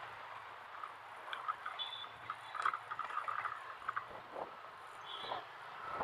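City street traffic heard from a slowly moving motorcycle: a faint low engine hum under a steady street background, with scattered short chirps and clicks and two brief high beeps, one about two seconds in and one near the end.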